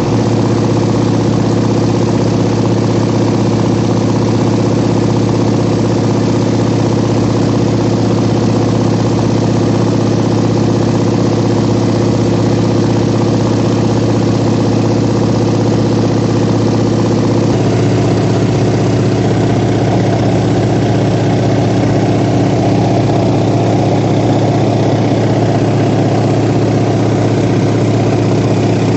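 Light aircraft's piston engine and propeller droning steadily, heard from inside the cabin in cruising flight; the engine note shifts slightly about two-thirds of the way through.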